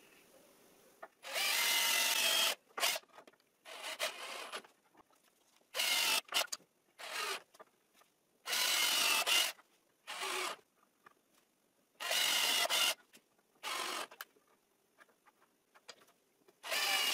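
A cordless drill-driver running in bursts into wood as the chair's back slats are screwed down: about five pairs, each a longer run of about a second and then a short one, with pauses between.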